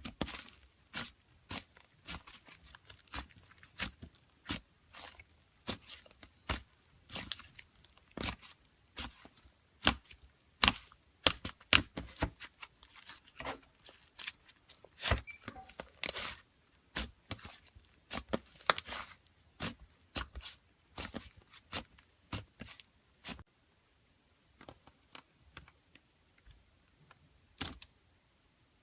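Slime being squished and stretched by hand, giving irregular sharp pops and crackles, many each second. The pops die away about three-quarters of the way through, leaving only a few faint clicks and one last pop.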